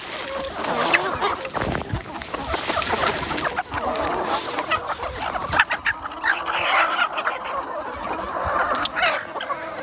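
A flock of chickens clucking.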